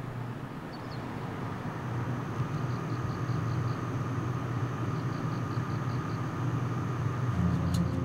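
Outdoor ambience with a steady low engine rumble and a faint hum. A faint high chirping comes in two short runs of about five chirps a second.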